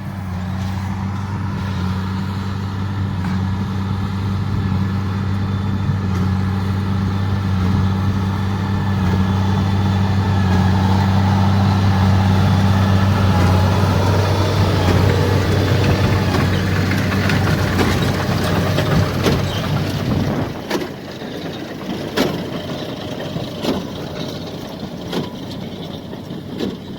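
JCB tractor engine running steadily under load while pulling a Case 8585 large square baler. It grows louder toward the middle, then drops away suddenly about twenty seconds in. Several sharp knocks follow near the end.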